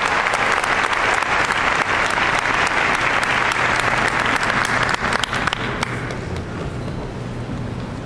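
Audience applause, dense and steady, thinning out and fading about six seconds in.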